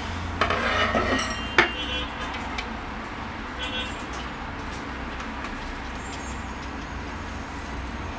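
Steel rods clinking and scraping against each other while being handled, with one sharp metallic click about a second and a half in and a few faint clinks later. A steady low hum underlies it.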